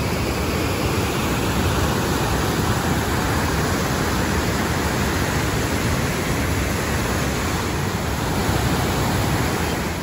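Waterfall and white-water rapids rushing over rocks: a steady, unbroken rush of water.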